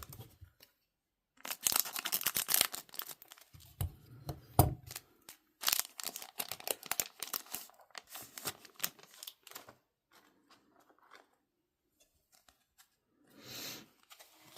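A trading card booster pack's wrapper being torn open and crinkled, with the cards rustling and clicking as they are handled, in several bursts that thin out to a few faint clicks after about nine seconds.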